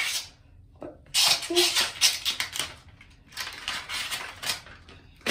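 Clear plastic false-eyelash packaging being handled and opened: two bursts of crinkling, clattering plastic, each a second or so long.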